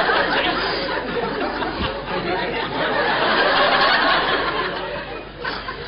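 Studio audience laughing: a broad, steady wash of many people's laughter that rises and falls and tails off near the end.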